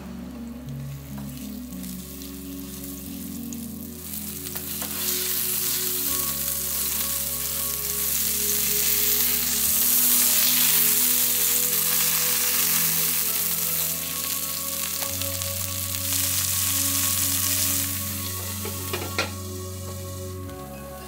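Fish fillet sizzling as it fries in olive oil in a stainless-steel pan. The sizzle grows louder a few seconds in and dies down near the end, where a few metal clinks come as a glass lid goes on the pan.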